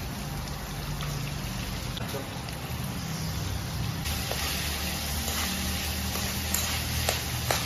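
Chopped onion and red chili sizzling in hot oil in a frying pan, the sizzle growing louder about halfway through. A few sharp clicks of the utensil against the pan come near the end, over a low steady hum.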